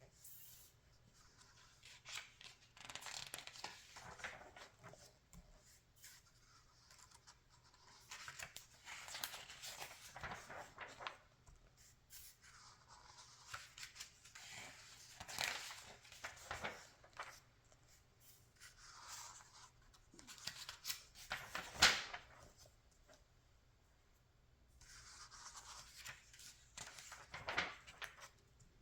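Glossy magazine pages being turned by hand: a soft paper swish every few seconds, with one sharper snap of paper about two-thirds of the way through.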